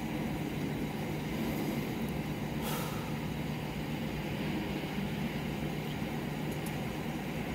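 Steady low engine rumble with a constant hum, with a short hiss about two and a half seconds in.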